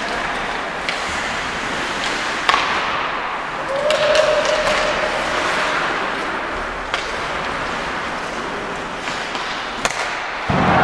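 Ice hockey play on a rink: a steady hiss of skates on the ice, broken by a few sharp knocks of stick and puck against the boards, with one held call from a voice about four seconds in.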